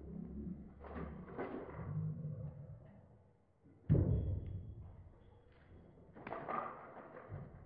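One sharp bang with a short decaying echo about four seconds in, typical of a gunshot on the range. Quieter knocks and thumps come before and after it.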